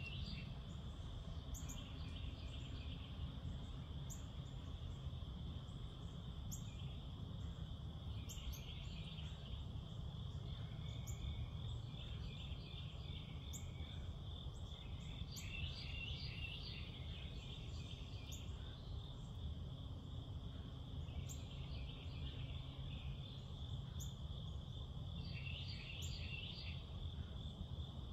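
Night-time insect chorus: a steady high trill, with louder bouts of pulsing calls that come and go every few seconds, over a low steady rumble.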